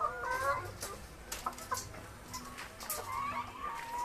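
Chickens clucking: a run of short, bending calls, with a few sharp clicks in between.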